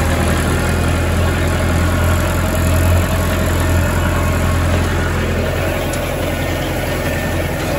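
Massey Ferguson tractor engine running steadily, a low, even drone.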